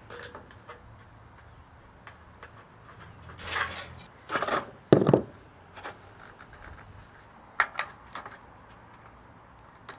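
Aviation snips cutting sheet-metal roof eave trim: a few sharp crunching snips about four to five seconds in, the loudest about five seconds in, with scattered small metal clicks later.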